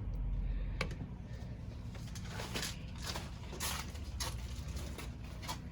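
Handling noises: a series of short rustles, scrapes and light knocks at irregular intervals, over a steady low hum.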